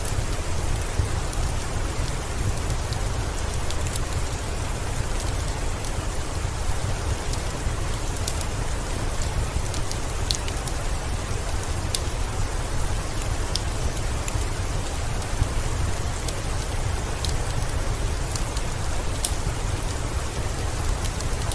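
Steady heavy rain with a deep low rumble under it, and scattered sharp pops and ticks, the crackle of a wood fire in a fireplace.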